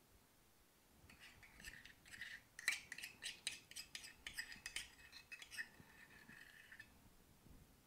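Metal spoon scraping and clinking inside a stainless-steel measuring cup, scooping out thick bouillon paste: a faint run of quick scrapes and clicks that starts about a second in and stops near the end.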